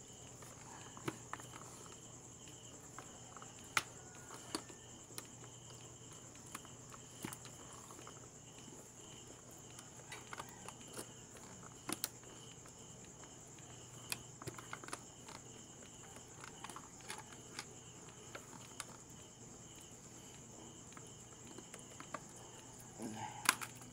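Steady night insect chirring, crickets in a high continuous buzz with a pulsing lower trill, and scattered light clicks and knocks from fish being handled in a wire-mesh crate.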